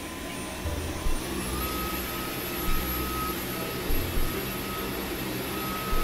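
Dyson V11 Absolute cordless stick vacuum running on carpet: a steady rush of suction with a high motor whine that steps up in pitch about a second and a half in. A few brief low thumps sound through it.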